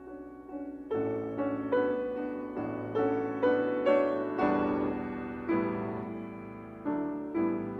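Background piano music: single notes struck one after another, each fading away.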